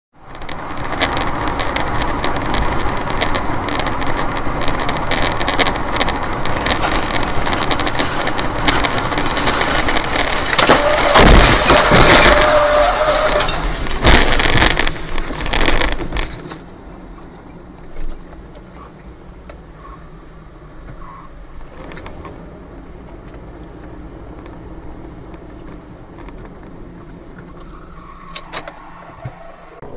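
Dashcam recording of a car on the road: loud, steady road and engine noise heard from inside the cabin. Several loud knocks and bangs come about 11 to 16 seconds in, with a steady tone for about two seconds. The sound then drops sharply to a much quieter, steady road noise.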